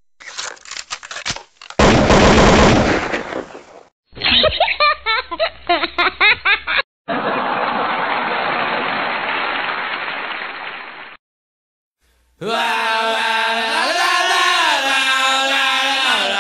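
An edited intro collage of short sound clips: a quick run of sharp cracks, a loud dense burst, a stretch of broken voice-like sounds, and a steady hiss that cuts off. After about a second of silence comes a sustained pitched tone that bends up and down.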